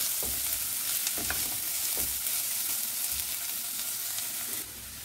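Chopped onions sizzling in hot ghee in a non-stick pan, stirred with a silicone spatula that gives a few scraping strokes. The sizzle drops suddenly near the end.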